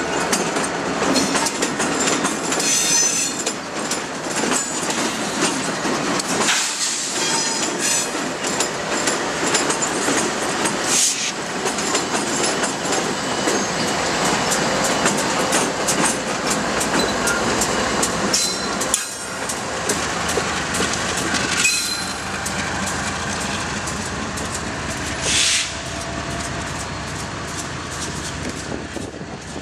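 Freight train with diesel locomotives passing close by: steady rumble and clatter of steel wheels on rail with a rapid run of rail-joint clicks. It gets quieter over the last several seconds as the train moves off down the track.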